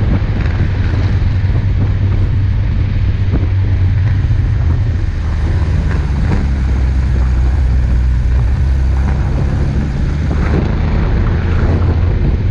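An off-road 4x4 driving steadily along a snow-covered road: a low, even rumble of engine and tyres on snow, with wind buffeting the microphone.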